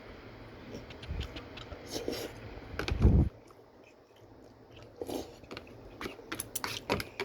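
A person eating: chewing with small scattered clicks and scrapes, and a loud low bump about three seconds in.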